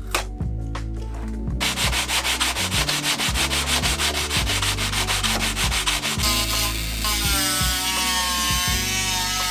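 Balsa wood spar strips being hand-sanded with a sanding bar in rapid back-and-forth strokes. About six seconds in, a handheld rotary tool with a sanding drum takes over with a steady, slightly wavering whine. Background music plays underneath.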